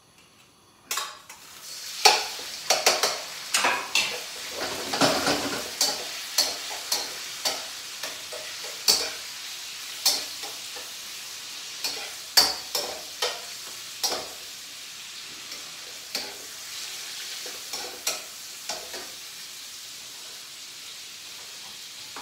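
Chicken pieces sizzling in hot oil in a wok. The sizzle starts about a second in as they go into the pan and runs on as a steady frying hiss. A utensil stirs and clacks against the wok many times, the strokes coming less often in the last several seconds.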